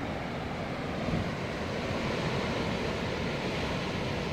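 Ocean surf breaking against rocks, a steady rushing wash, with wind buffeting the microphone.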